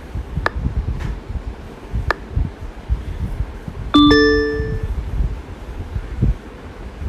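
A short two-note chime, a lower note then a higher one, like a doorbell or notification ding-dong, sounds about four seconds in and rings out in under a second. Low rumbling noise and a couple of faint ticks run underneath.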